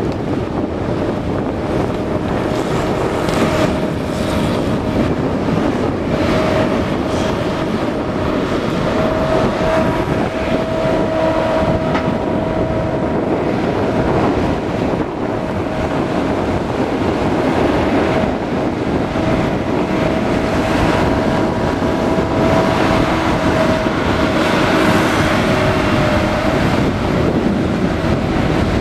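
Madill 2250 tracked logging machine running steadily as it works: a continuous diesel engine drone with a steady high whine on top.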